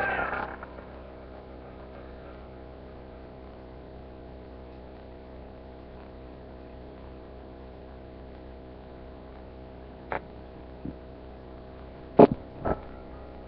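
Steady electrical hum, with a few short knocks or clicks about ten to thirteen seconds in, the loudest just after twelve seconds.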